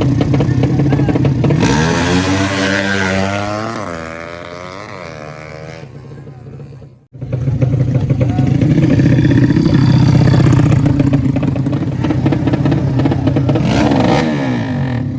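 Drag-racing motorcycles running at full throttle. About two seconds in, one bike passes and its engine pitch drops as it goes away and fades. The sound cuts off abruptly around the middle, then another engine comes in loud and running hard, with a second pass and falling pitch near the end.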